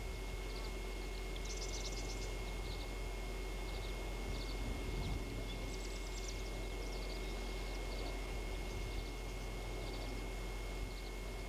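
Outdoor ambience: faint, high, short chirps come irregularly, a few each second at times, over a steady hiss, a low hum and a thin steady whine.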